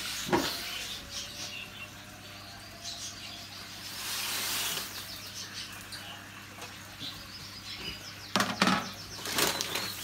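Paper seed sacks rustling and being handled, with a burst of louder rustles and knocks near the end, while small caged birds chirp faintly in the background.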